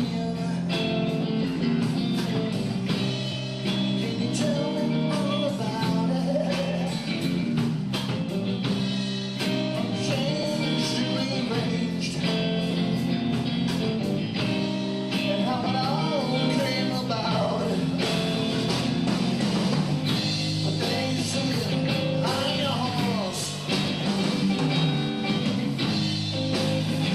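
Instrumental break in a rock song: guitar over bass and drums, with bending guitar notes in the second half.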